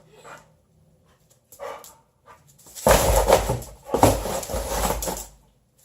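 Boxer dog chasing a laser dot: a short scuffle about a second and a half in, then from about three seconds in a loud burst of noisy scrabbling and dog sounds lasting a couple of seconds.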